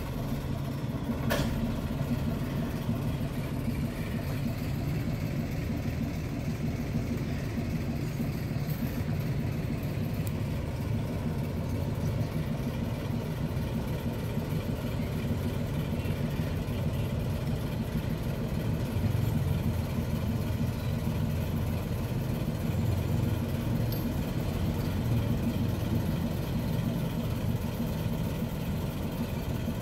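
Small Plymouth switcher locomotive's engine idling steadily with a low hum, with one sharp click about a second in.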